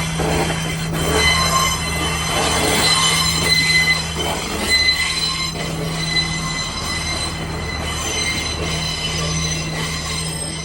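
Passenger train running on the rails, with a high-pitched wheel squeal that comes and goes over a steady low drone.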